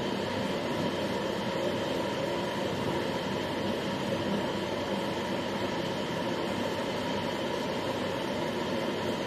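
Plastic-moulding oven running with a steady roar from its fans and burner as it heats the mould, a few faint steady tones humming under the noise.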